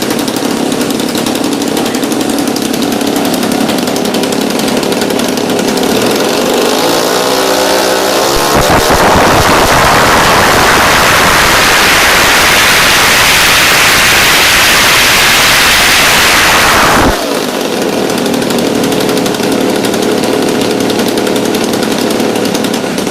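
Twin engines of a P-38 Lightning model plane running after a tune-up. They idle, rev up with a rising pitch about a third of the way in, and hold full throttle for about eight seconds. Then they drop abruptly back to idle.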